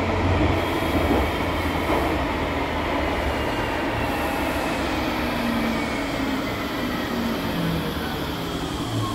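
Light-rail car heard from inside, running with a steady rumble, with a faint motor whine that falls steadily in pitch as the car brakes toward a station.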